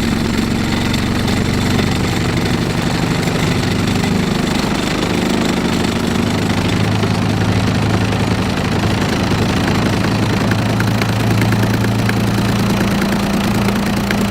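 An engine idling steadily, its note holding level throughout.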